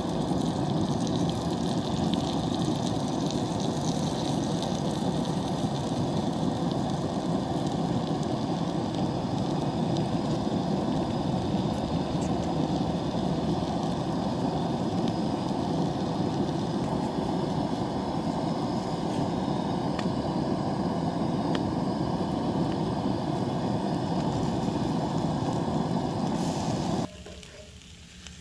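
Steady rushing of a propane camp stove burner heating a cast iron skillet of toasting donuts. It cuts off abruptly near the end, leaving a quieter sizzle.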